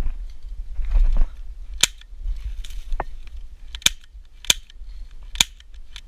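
Airsoft gun firing single shots: five sharp cracks, roughly a second apart, the second one weaker. A low rumble on the microphone comes before them in the first second or so.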